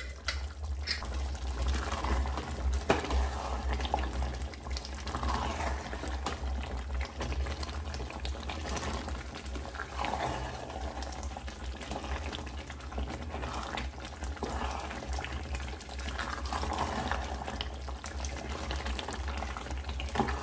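Thick mutton curry bubbling in an aluminium pressure-cooker pot, stirred with a wooden spatula in swells every few seconds, over a steady low hum.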